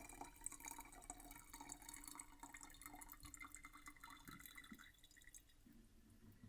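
Faint drips and trickling of water draining from a kitchen sink just after the faucet is shut off, thinning out and dying away about five seconds in.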